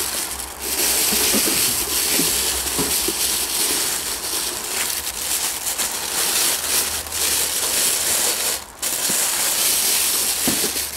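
Thin clear plastic bag crinkling and rustling loudly as it is worked off a new welding helmet by hand, with a brief pause about nine seconds in.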